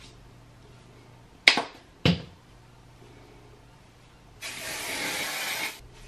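Aerosol hairspray can spraying in one long hiss of about a second and a half near the end, with a second spray starting right after it. Earlier, about a second and a half in, two short sharp smacks come roughly half a second apart.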